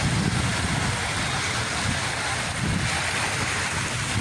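Sea waves washing in a steady rush of water noise, with a low rumble that swells and eases.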